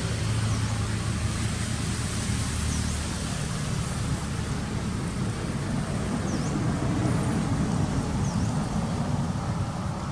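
Steady low rumble of motor traffic, with a few faint, short, high chirps scattered through it.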